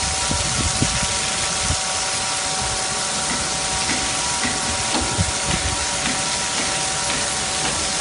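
Water tanker truck's spray system running: a steady hiss of water jetting from the roof-mounted water cannon and the rear spray bar, over a steady mechanical whine from the truck's pump machinery.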